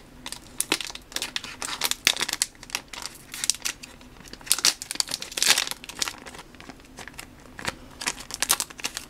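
Foil trading-card booster pack wrapper crinkling and tearing as fingers pick and pull at a stubborn pack to get it open: a rapid, irregular run of crackles.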